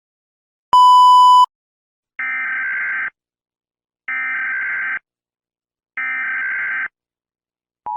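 Emergency Alert System tones: a single loud beep about a second in, then three buzzing bursts of SAME header data, each just under a second long and a second apart. Right at the end the steady two-tone EAS attention signal begins.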